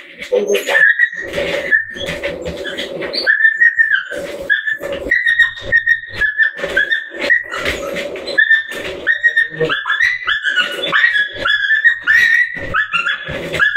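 A frightened dog whining and yelping in many short, high cries, a couple a second, as it resists being held for grooming, with a steady hum underneath.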